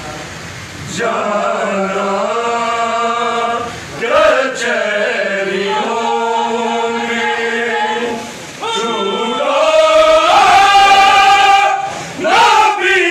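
A group of men chanting a noha lament together, in long drawn-out sung phrases with short breaks about every four seconds.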